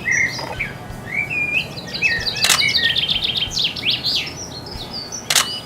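Garden birds singing, with a run of quick chirping notes rising to a fast trill in the middle. Two sharp clicks about three seconds apart cut through the song.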